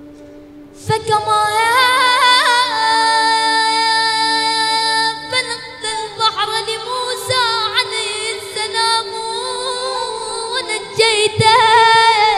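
A boy's voice chanting an Arabic supplication in a melodic recitation style. Long held notes are broken by quick wavering ornaments, and the chanting starts about a second in.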